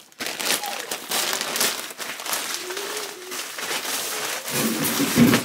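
Plastic packaging crinkling and rustling as a parcel is opened, with a louder, lower sound near the end.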